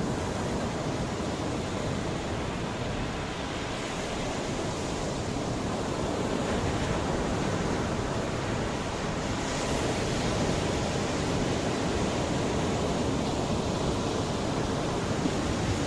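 Mediterranean sea waves washing onto the shore in a continuous rushing wash, swelling slowly, with a brighter hissing surge about nine and a half seconds in.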